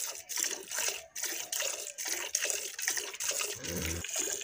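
Cow being milked by hand: streams of milk squirting into a metal pot already full of frothy milk, a rhythmic splashing about two to three squirts a second.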